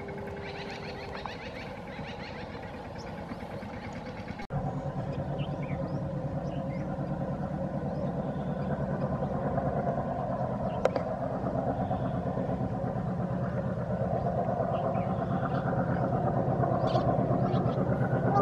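Diesel locomotive engine running with a rapid low throb, getting steadily louder as the train approaches. The sound cuts out abruptly about four and a half seconds in and comes back louder.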